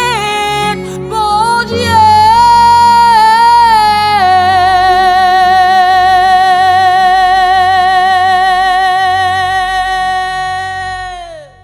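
Female gospel singer holding the final note of a worship song over instrumental backing. After a few moving notes she sustains one long note with vibrato for about seven seconds, and the music fades out at the end.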